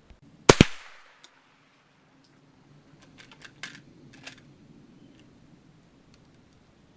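A single sharp, very loud crack from a .22 rifle shot, with a brief fading ring, followed a couple of seconds later by a string of light clicks.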